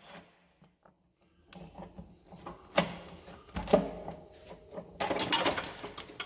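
Metal clinks and clanks of hand tools on steel as an old down-force spring is worked loose from a John Deere planter row unit, with a burst of metallic rattling about five seconds in.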